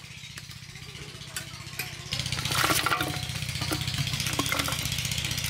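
A small engine hums steadily in the background. From about two seconds in, a louder rustling clatter comes in: raw chicken pieces slide off aluminium plates into a wicker basket, with light clinks of metal.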